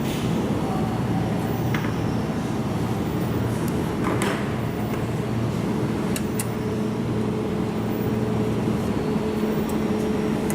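Steady machine hum, a low drone with a faint higher tone in it, and a few light clicks about two, four and six seconds in.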